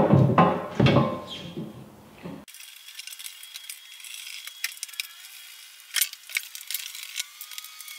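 Metal stand panels knocking together and ringing, then, after about two and a half seconds, light metallic clinks of small bolts and hardware being handled.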